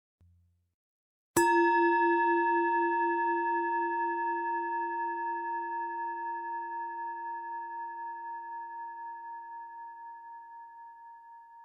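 A singing bowl struck once about a second and a half in, ringing on with a slow, regular waver in its tone as it gradually fades.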